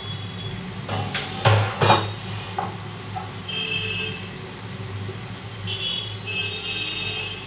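Cookware clattering: a few sharp knocks about one to two seconds in. The chicken pieces simmering in gravy in a nonstick frying pan make a low sizzle throughout.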